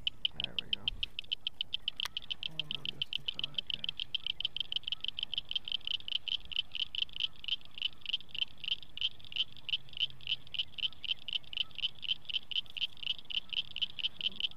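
A frog calling: a long, even train of high clicks, several a second.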